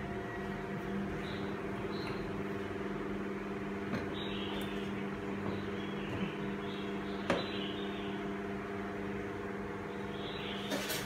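A steady machine hum with several fixed tones over a low hiss, with a few light clicks, one about four seconds in and a sharper one about seven seconds in.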